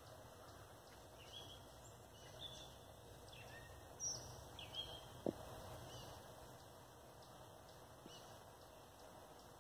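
Quiet outdoor background with scattered faint bird chirps and one sharp click about halfway through.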